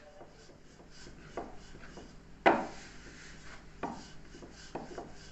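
Four separate knocks of a kitchen utensil against a roti griddle while rotis are being flipped; the second knock, about two and a half seconds in, is much the loudest.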